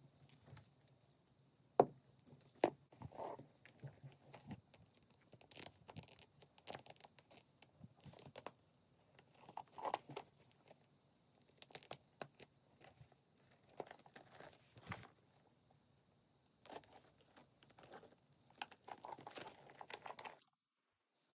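Close handling noise of a leather handbag strap and its metal hardware: rustling and rubbing of leather, with scattered sharp clicks and rattles from the metal buckle, clasps and chain, the sharpest two about two seconds in. The sounds stop abruptly about a second before the end.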